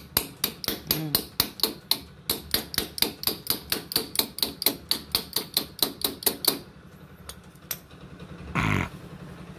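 Hammer tapping rapidly on metal, about four or five blows a second, stopping about six and a half seconds in: work on the front wheel bearing race of a Bajaj Chetak scooter's hub. A short, loud sound falling in pitch follows near the end.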